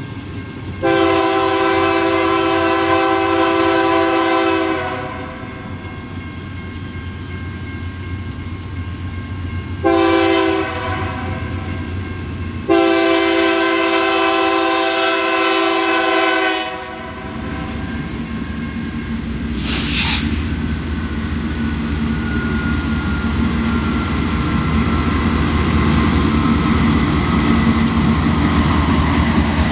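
Multi-chime air horn of a GE Dash 9-44CW diesel locomotive sounding as the train approaches: a long chord of about four seconds, a short blast, then another long chord. After that the locomotive's engine and the rumble of the train grow steadily louder as it draws near.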